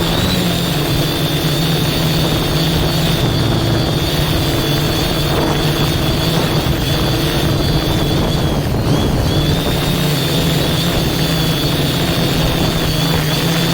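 Drone's electric motors and propellers humming steadily in flight, a low hum with a high whine above it, both wavering slightly in pitch, over a rush of wind noise.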